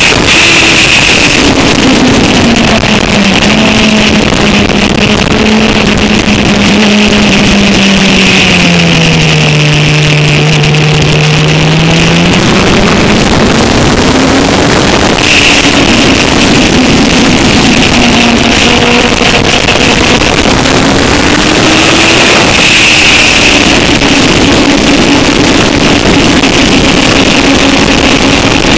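Sportbike engine at track speed with heavy wind rush over the microphone. The engine note sinks slowly through the first dozen seconds as the bike eases off, then climbs again in steps through the gears, rising once more about two-thirds of the way in and holding steady near the end.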